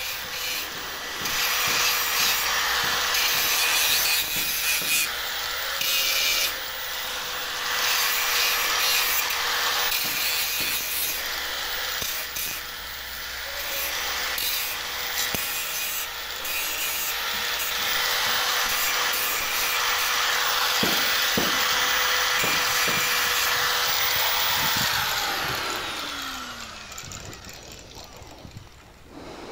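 Electric angle grinder grinding steel with a harsh abrasive rasp, smoothing and deburring the cut metal. Near the end the grinder is switched off and its motor whine winds down and fades.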